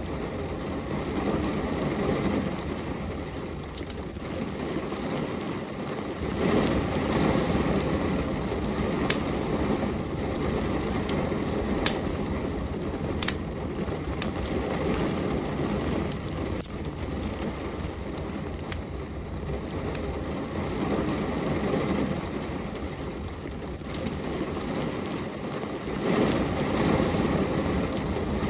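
Steady rain falling, swelling louder and easing off in waves, with the occasional sharp crackle and pop of a wood fire burning in a fireplace.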